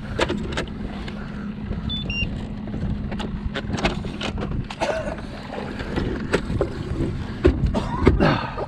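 Steady low hum on a fishing boat, with repeated sharp knocks and clatter on the deck and a louder bunch of knocks near the end.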